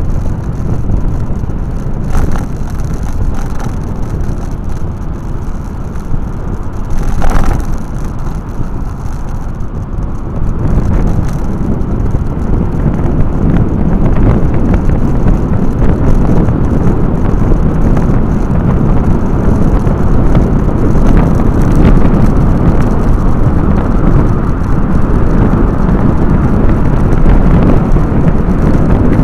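Wind buffeting the microphone over the rumble of a moving two-wheeler and the road, a steady low rush that grows louder about ten seconds in as the ride picks up speed on an open road.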